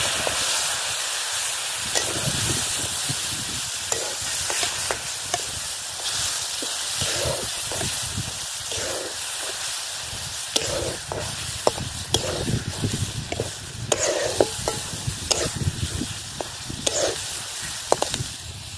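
Freshly ground masala sizzling in hot oil in a metal pan, with a metal spatula scraping and clicking against the pan as it is stirred. The sizzle fades near the end.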